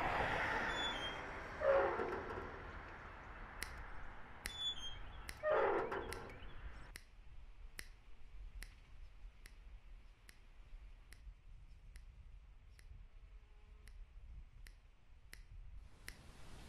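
A small dog barking twice over outdoor noise, then a steady ticking at about one and a half ticks a second.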